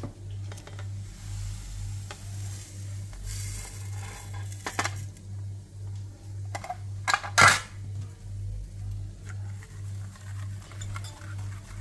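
Cocoa powder, flour and sugar scraped with a spoon off a plate into a glass bowl of milk, with a few sharp clinks of metal and crockery, the loudest about seven and a half seconds in. Near the end a wire whisk starts stirring in the glass bowl. A low pulsing hum runs underneath.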